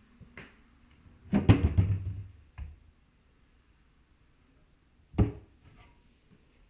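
Wooden kitchen wall-cupboard door pulled open with a clatter of several knocks, then swung shut with a single sharp knock about five seconds in.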